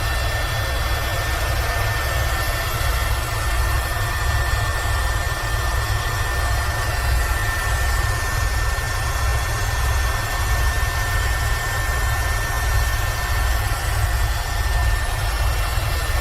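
Eurocopter H130 helicopter in cruise flight: the single turbine engine and rotors run steadily, with a deep pulsing rotor rumble under a constant high whine.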